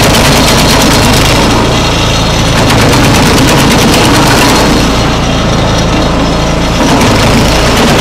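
Small gasoline engine of an Urban SMV70 branch logger running under load while the machine chops white oak boards into chunks, with a rapid clatter of cutting and chunks knocking through the chute. The clatter is thickest in the first half and eases off for a couple of seconds after the middle.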